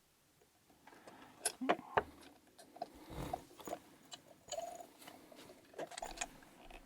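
Light metal clicks and scrapes of a pick and tension tool working inside the keyway of a KABA 8 dimple lock, coming irregularly from about a second in as the pick probes for the dimple pins.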